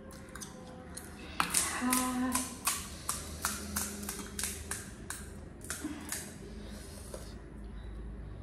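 Crisp pani puri shells cracking and crunching as they are broken open and eaten. There is a quick run of sharp crackles from about a second and a half in until about six seconds.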